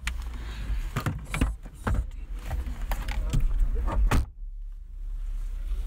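A passenger climbing out of a car: a run of knocks, clunks and rustling from the door and seat over a low rumble, ending with the car door shutting about four seconds in.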